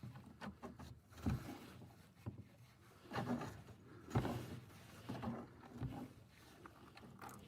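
Irregular clicks, knocks and scrapes of a wrench working a car's engine-oil drain plug loose.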